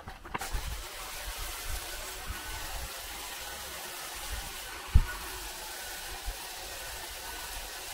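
Pole hedge trimmer running steadily while cutting a tall conifer hedge, a continuous whirring hiss. There is a single short knock about five seconds in.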